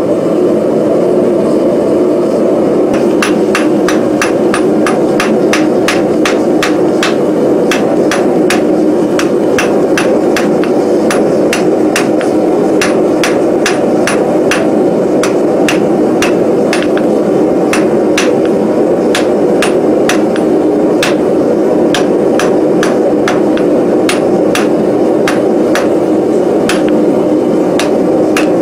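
Hand hammer striking a red-hot forge-welded steel bar on an anvil, about two blows a second, starting a few seconds in. The bar is being drawn out square at welding heat. A steady low hum runs underneath.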